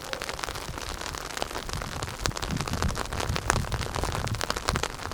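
Sleet and freezing rain falling, a dense patter of fine ticks, with low rumbles joining about two seconds in.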